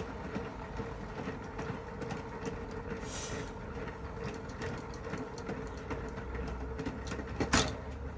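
Hand-cranked mini washing machine being turned: a steady rattling whir with many small clicks from the crank and drum, and one sharp knock near the end.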